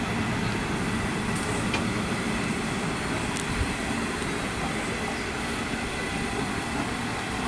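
Stainless-steel carriages of a long-distance passenger train rolling past, a steady rumble of wheels on the rails with a few faint clicks.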